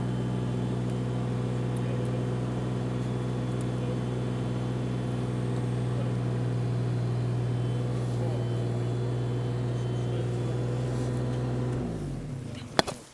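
JCB mini excavator's diesel engine running steadily at constant speed, then switched off about twelve seconds in, its note sinking away as it stops. A single sharp click follows just after, the loudest sound.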